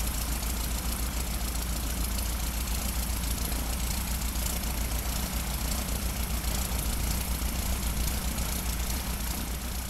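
Steady engine and propeller drone of a light airplane heard from inside the cabin in flight, a constant low rumble under an even rushing noise, beginning to fade near the end.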